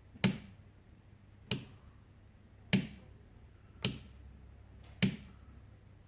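A power switch clicked on and off repeatedly, five sharp clicks about one every 1.2 seconds, cycling the power to the smart fairy lights' controller to put it into Wi-Fi pairing mode.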